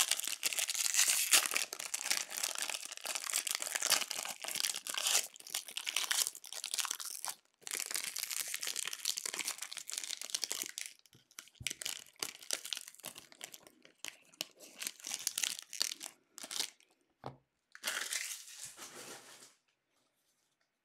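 Foil wrapper of a hockey card pack being peeled off and crumpled by hand. A dense crinkling runs for about seven seconds, then comes in shorter bursts and scattered crackles, with a last flurry before it stops near the end.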